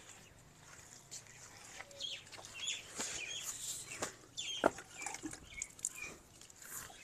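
Hand trowel scraping and patting wet mud plaster across a floor in short, irregular strokes, with chickens clucking in the background.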